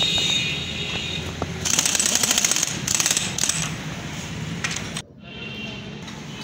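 Pneumatic impact wrench rattling in two short bursts, running down the steering head nut on a motorcycle frame.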